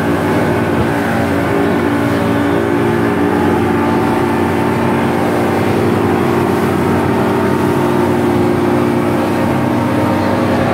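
Speedboat's outboard motor running steadily at speed, a constant engine drone with the rush of water and wind over it.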